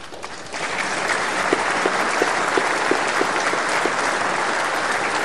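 Audience applauding: many people clapping steadily, the applause swelling up about half a second in.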